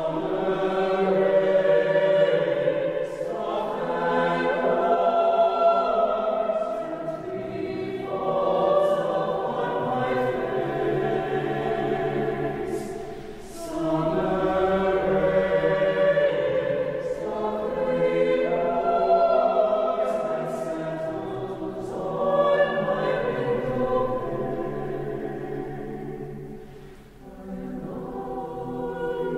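Mixed chamber choir singing sustained chords in long phrases that swell and fade, with short breaks between phrases about halfway through and near the end.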